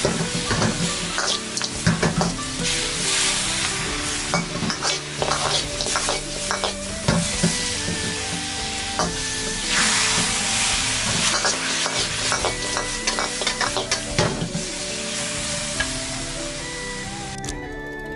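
Chicken wings sizzling in a wok in a reduced fish-sauce caramel glaze, with a spatula scraping and tossing them against the wok in many quick clicks and scrapes. The frying stops shortly before the end.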